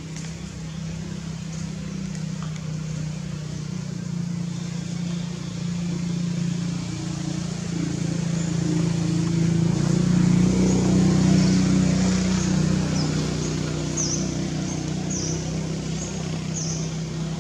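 Low, steady engine hum, like a motor vehicle running close by, swelling to its loudest about ten to twelve seconds in and then easing off. From about twelve seconds in, short high chirps repeat roughly once a second.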